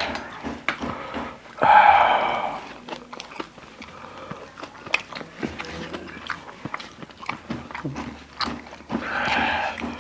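Close-miked mouth sounds: scattered lip smacks and chewing clicks, with two long breathy exhales through an open mouth, a loud one about two seconds in and a softer one near the end, the sound of someone suffering from very spicy noodles.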